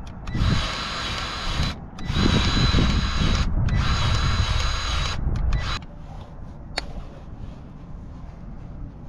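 Battery-powered grease gun motor whining in four short runs, pumping grease into the fitting of a hydraulic breaker. It stops about six seconds in, and a single sharp click follows.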